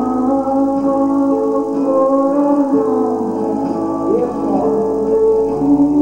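Music: a gospel song, a voice singing long held notes over instrumental accompaniment.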